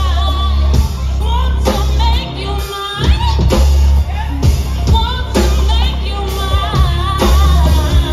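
A woman singing live over music with heavy bass and a steady drum beat.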